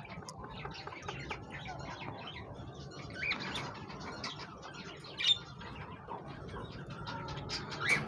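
A roomful of caged parrots and small birds chirping at once: a constant scatter of short chirps, with a few louder calls standing out, the loudest about five seconds in.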